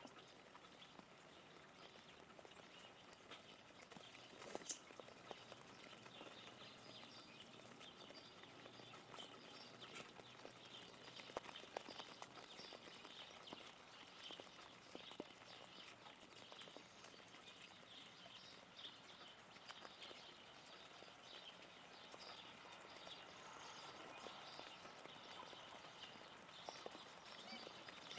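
Faint, irregular ticks and taps of raindrops dripping onto leaves, over a soft steady hiss.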